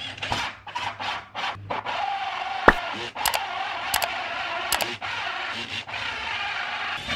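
Cordless drill with a large hole saw cutting through a wardrobe's back panel. It makes a steady grinding, rasping noise over the motor's whine, with a few sharp clicks midway.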